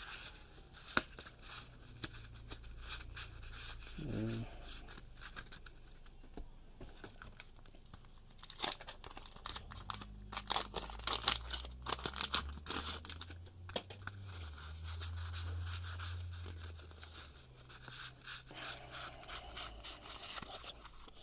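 Wax-paper trading-card pack wrappers being torn open and crinkled, with cards shuffled and flicked against each other. The loudest crackling comes in a cluster near the middle.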